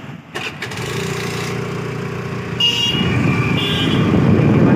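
Street traffic: a steady engine and road rumble growing louder, with two short vehicle horn toots about two and a half and three and a half seconds in.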